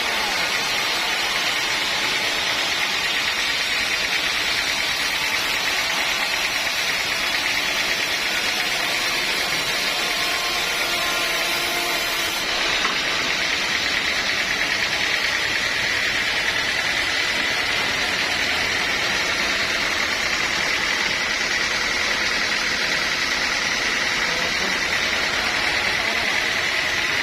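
Sawmill saw running steadily under load, a constant high-pitched whine over dense mechanical noise.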